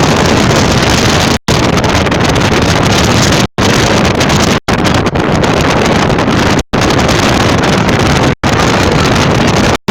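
Heavy wind buffeting the microphone: a loud, steady rush that cuts out abruptly for a split second about six times.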